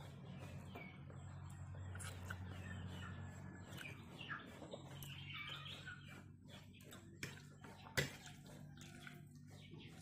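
Faint chirping of small birds over a low steady hum, with scattered soft ticks and one sharp click about eight seconds in.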